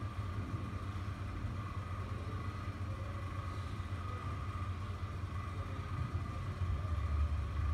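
Steady low mechanical rumble with a faint, even hum above it, growing louder near the end.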